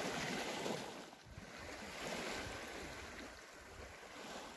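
Small waves lapping softly on a pebbly lakeshore, the wash swelling and easing.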